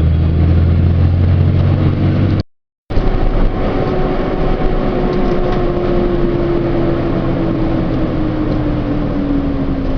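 Truck engine and road noise heard from inside the cab: a steady low hum, broken by a sudden half-second dropout about two and a half seconds in. It then runs on with a single tone slowly falling in pitch.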